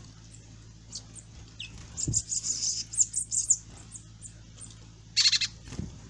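Small birds chirping in quick high-pitched series, with a louder, harsher call about five seconds in, over a steady low hum.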